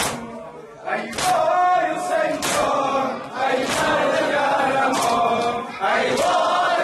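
Men's voices chanting a Shia mourning noha in unison, kept in time by loud rhythmic chest-beating (matam): open-handed slaps on the chest about once every second and a quarter.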